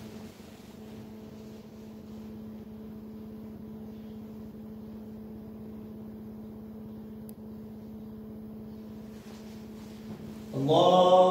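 A steady low hum holding one even tone. About ten and a half seconds in, a man's voice breaks in loudly.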